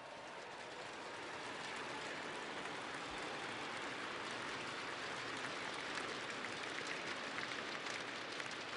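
A large audience applauding.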